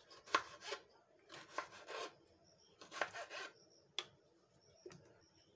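Kitchen knife cutting soft tomatoes on a plastic cutting board: three short rasping strokes, then a sharp tap of the blade on the board about four seconds in.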